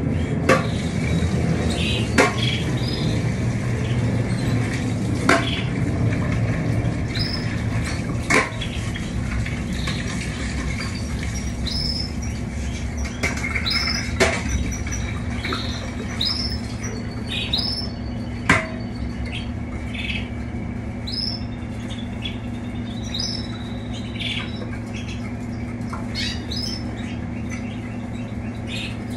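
Caged canaries chirping, with short calls scattered throughout. Several sharp clicks or knocks stand out above them, and a steady low hum runs underneath.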